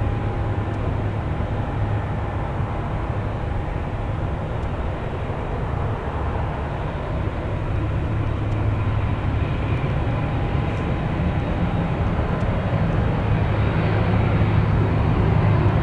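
Boeing 767-300 airliner's twin jet engines running as it rolls out on the runway after landing: a steady jet rumble and hiss that grows louder over the last few seconds as the plane comes nearer.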